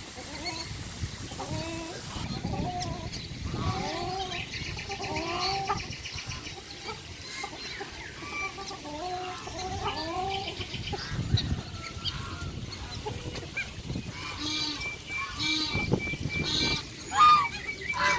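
A crowd of waterfowl, ducks and geese, calling: many short nasal calls overlapping one another, busiest in the first half and thinning out after, with a single loud sharp sound near the end.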